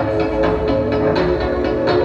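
Electronic synth-pop music, held synth chords over a steady beat.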